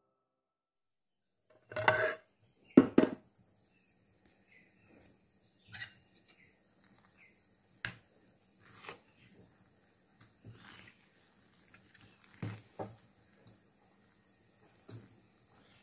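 Two loud clatters about two and three seconds in, then a steel spoon stirring thick fermented idli batter in a steel vessel, knocking and scraping against the vessel now and then, with crickets chirping steadily behind.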